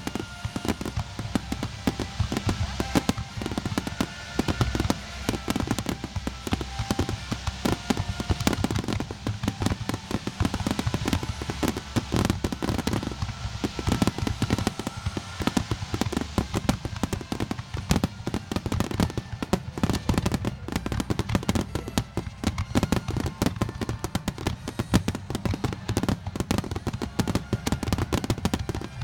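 Aerial fireworks exploding in a rapid, unbroken barrage of bangs and crackles, with music playing under them.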